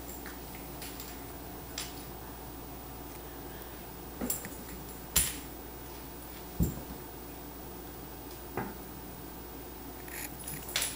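A puppy and a tabby cat play-wrestling on a hardwood floor: scattered sharp taps and thumps of paws, claws and bodies, about five spread a second or two apart, then a quick cluster near the end.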